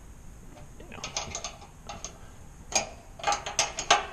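Irregular metallic clicks and knocks from hands working the washer door's hinge hardware: a few light clicks, then a louder burst of clacks in the last second and a half.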